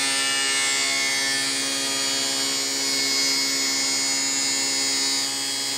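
SawStop table saw running with a 3/4 inch dado stack, the spinning cutters being raised up through a new Baltic birch insert to cut its own zero-clearance opening: a steady, even machine whine.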